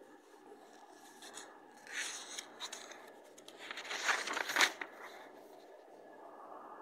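Paper rustling in two short spells, about two seconds in and again, louder, around four seconds in, over a faint steady hum.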